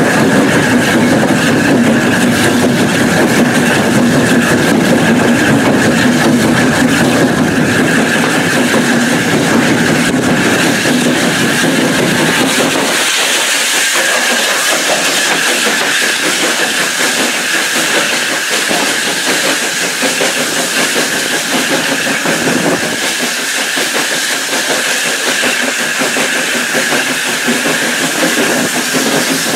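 Steam-hauled train running at speed, heard from an open carriage window: a steady rush of wheel and rail noise with steam hiss. The low rumble falls away about thirteen seconds in, then returns briefly around twenty-two seconds.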